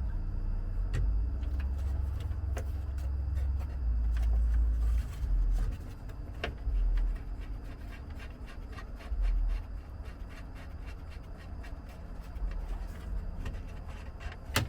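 Scattered light clicks and taps of hands and a tool working behind a vehicle's instrument panel, over a low rumble of handling noise that swells and fades.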